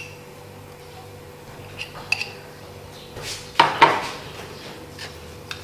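A metal spoon clinking against a jar of harissa and a frying pan as a spoonful is scooped out and dropped in: a few light clicks about two seconds in, then two louder knocks a little past halfway.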